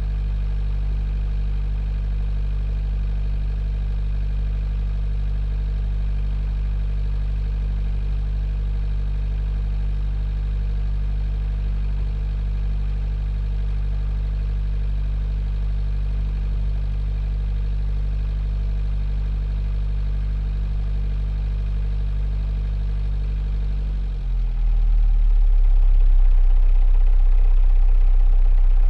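A 45 ft sailboat's inboard diesel engine running steadily, heard from inside the aft cabin as a low, even drone. About 24 s in, the engine's pitch drops and the low drone gets louder.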